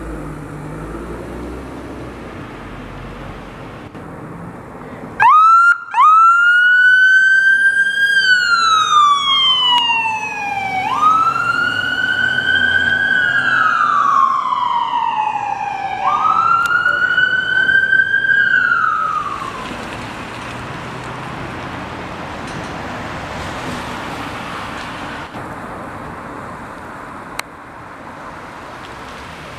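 Emergency vehicle's electronic siren on a fire-rescue medic pickup truck. It starts with a quick upward chirp, then wails, rising and falling slowly three times over about fourteen seconds before it stops. Steady city traffic noise runs around it.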